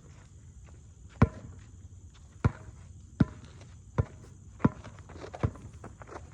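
A basketball being dribbled: seven sharp bounces, a little unevenly spaced, about one a second.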